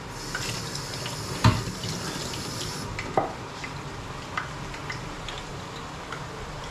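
Hot oil sizzling in a frying pan, a hiss that stops suddenly about three seconds in, with a few sharp knocks of cookware, the loudest about one and a half seconds in.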